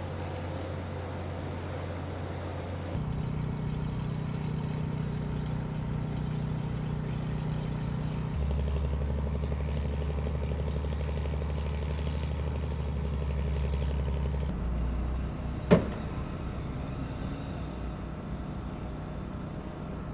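Construction machinery engine running steadily, its low drone shifting abruptly in pitch a few times, with one sharp knock about sixteen seconds in.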